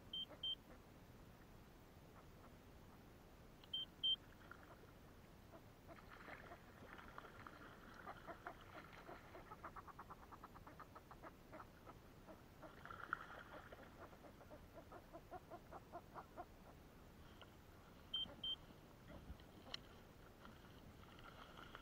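Faint electronic beeps, a short double beep heard three times: right at the start, about four seconds in, and near the end. In the middle, for about ten seconds, comes a faint rapid run of clicks, several a second, slowing toward the end.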